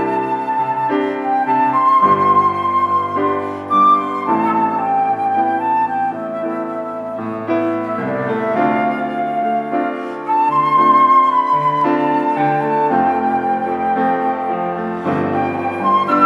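Concert flute playing a slow melody with vibrato over grand piano chords.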